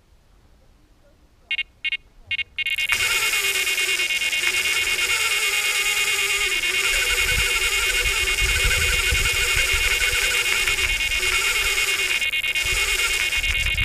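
Nash Siren electronic carp bite alarm sounding a run: three short beeps, then from about three seconds in a continuous high tone as line is pulled steadily from the reel by a taking carp. A low rumble joins underneath about halfway through.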